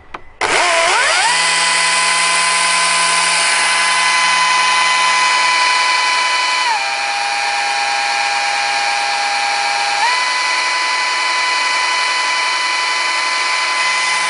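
Husqvarna 536Li XP cordless chainsaw's brushless motor and chain running free, not cutting. It spins up about half a second in to a steady high whine. Partway through it drops to a lower, slightly quieter pitch for about three seconds in its savE eco mode, then climbs back to full chain speed and cuts off suddenly near the end when the chain brake is engaged.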